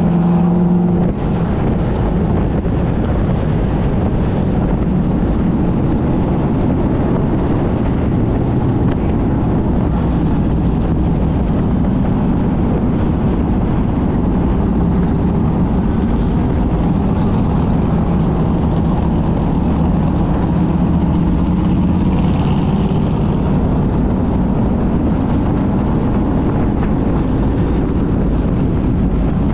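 Onboard sound of an open-wheel race car's engine, carbureted under an open air cleaner, running steadily at low pace speed, about 30 to 40 mph, with the engines of the cars around it. Wind buffets the microphone.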